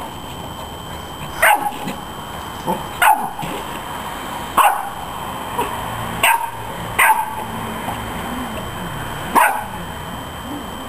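Chow Chow puppy barking at a garden hose in short, sharp, high puppy barks, about six of them, a second or two apart.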